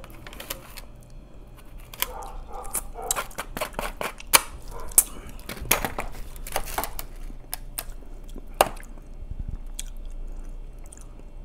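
A man eating close to a lapel microphone: chewing and mouth sounds with many scattered sharp clicks and ticks.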